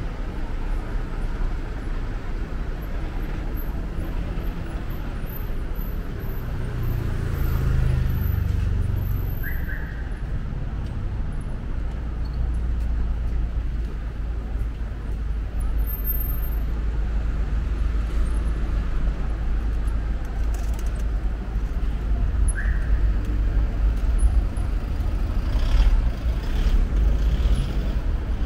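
Urban street traffic: cars, taxis and buses passing with a continuous low rumble, swelling briefly as a vehicle goes by and twice cut through by a short high squeak.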